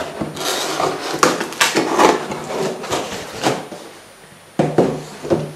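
Cardboard shipping box being handled and moved: rubbing and scraping of cardboard with clicks and knocks, then a few sharper knocks against the wooden table near the end.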